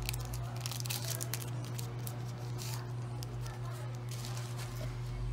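Plastic packaging being handled, crinkled and torn by hand, with scattered rustles and small clicks, thickest in the first few seconds. A steady low hum runs underneath.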